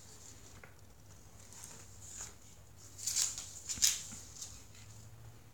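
Sheets of printed paper rustling and crackling as a toddler turns and lifts pages of a stapled stack, with a few louder crackles between about three and four seconds in.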